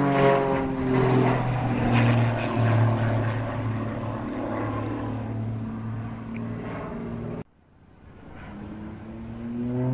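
Aerobatic biplane's propeller engine flying overhead. Its note falls in pitch, then runs steady. It cuts out abruptly about three-quarters of the way through and fades back in, rising in pitch.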